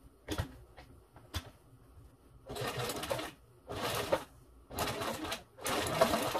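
Sewing machine fitted with a walking foot stitching through leatherette in four short runs with brief stops between them, after two sharp clicks in the first second and a half.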